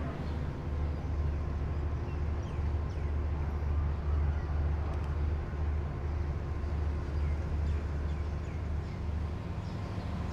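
Outdoor railway yard ambience: a steady low rumble with faint, scattered bird chirps.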